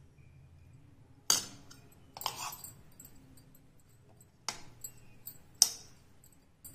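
Steel spoon clinking against a ceramic bowl while scooping potato stuffing into dough cups: about five sharp clinks, the loudest at about a second in and near the end.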